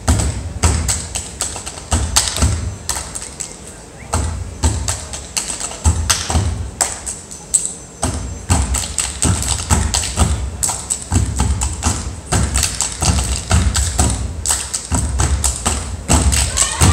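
A step team stepping in unison: rhythmic stomps on the wooden stage floor and hand claps, several sharp hits a second in groups broken by brief pauses.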